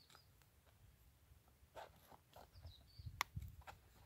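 Faint strokes of a Benchmade Puukko knife blade cutting into a wooden stick as a notch is carved: a few quiet, separate cuts and scrapes in the second half, one of them a sharper click a little past three seconds.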